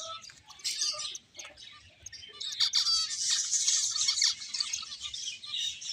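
Several finches chirping, with many short, high calls overlapping and a louder, busier burst of chatter about halfway through.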